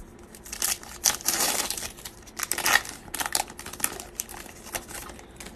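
Foil trading-card pack wrapper being torn open and crinkled by hand: a run of irregular crinkling and tearing noises that die away near the end.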